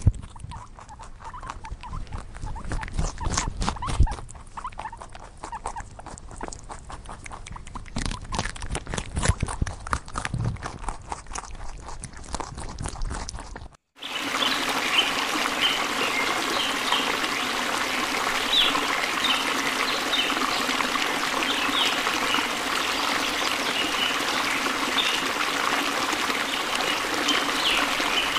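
Birdbath fountain bubbling steadily, with many short high chirps from Anna's hummingbirds around it. This follows a quieter first half of scattered clicks, thumps and rustling from young rabbits moving about in straw.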